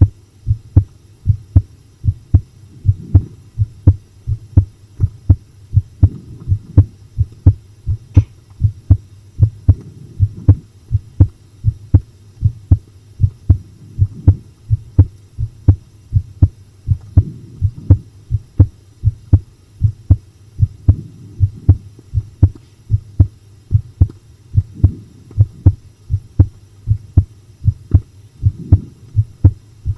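A human heartbeat recorded close to the chest, pounding in an even run of lub-dub pairs, the heart of a listener keyed up by a horror film.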